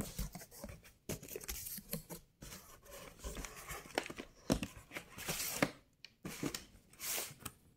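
Cardboard box flaps being opened and boxed firework cakes shifted and lifted out by hand: irregular rustling, scraping and light knocks of cardboard against cardboard.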